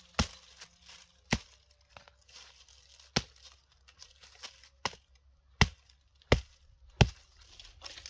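Hatchet chopping thin branches on the ground: about seven sharp strikes at uneven intervals, the last three the loudest.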